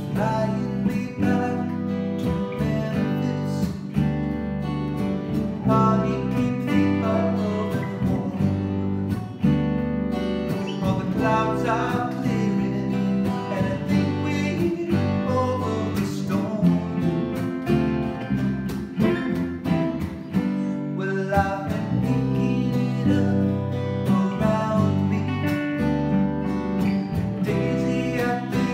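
Live acoustic band: two acoustic guitars and an electric bass guitar playing a song together, with a man singing lead over them.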